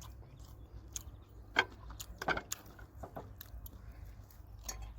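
A person chewing and eating, with scattered short, sharp clicks; the sharpest comes about one and a half seconds in.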